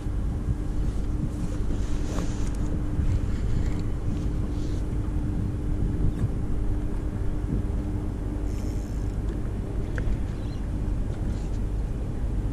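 Wind buffeting the microphone on a small open boat, with a steady low hum that stops about nine seconds in.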